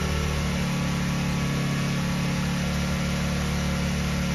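Bajaj Avenger 220's single-cylinder four-stroke engine idling steadily, running again after its carburettor, gummed up with stale petrol, was taken off and cleaned a second time.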